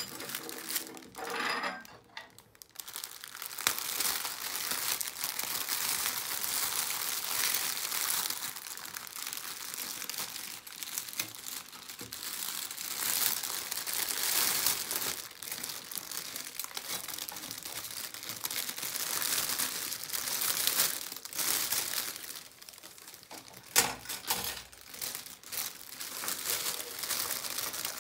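A clear plastic bag crinkling and rustling as hands open it and handle the packed weather vane parts inside. The sound swells and fades with the handling, with one sharper click about four seconds before the end.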